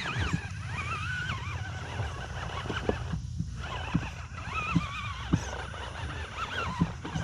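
Electric motor of a 1/10-scale RC rock crawler whining, its pitch rising and falling as the throttle is worked on a steep climb. Several sharp knocks of the truck's tires and chassis on rock come through it.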